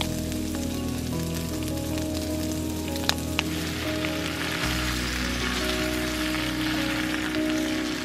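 Sausage slices and fried potatoes sizzling in a steel pan, the sizzle growing stronger about halfway through, with two sharp clicks about three seconds in. Background music with held notes plays underneath.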